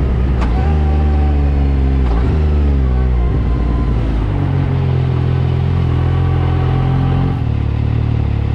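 Yamaha YXZ 1000R's three-cylinder engine pulling under load on a rough trail, its pitch falling and stepping up and down several times. Two sharp knocks come in the first couple of seconds.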